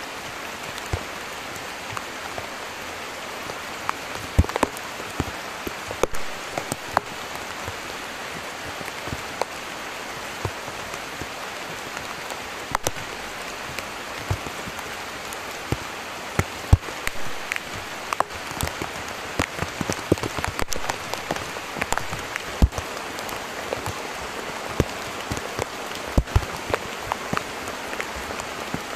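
Heavy rain falling on a shallow stream and wet pebbles: a steady hiss with many sharp, close drop hits scattered throughout.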